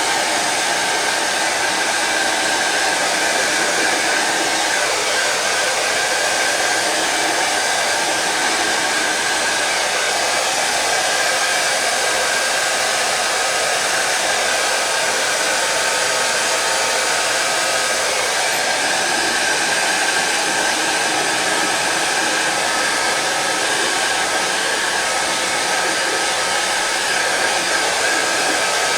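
Heat gun running steadily, a continuous blowing rush with a faint steady whine, used to shrink MonoKote film covering tight on a balsa wing.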